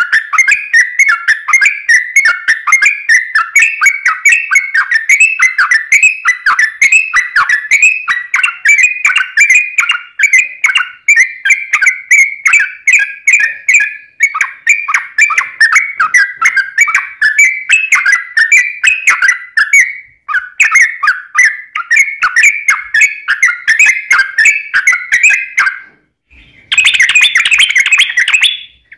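Yellow-vented bulbul singing a long, fast, chattering run of sharp whistled notes (the 'ropel' song), several notes a second without letup. Near the end it pauses briefly and then breaks into a denser, busier burst.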